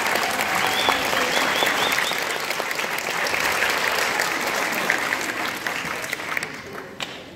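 Audience applauding, with a few brief high cheers in the first couple of seconds; the clapping dies away near the end.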